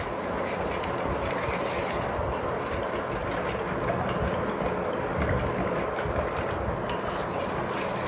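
Wooden hand churner (mathani) twirled rapidly between the palms in a steel bowl of curd and water, making a steady churning and sloshing with a fast, continuous rattle, as the buttermilk is whipped smooth.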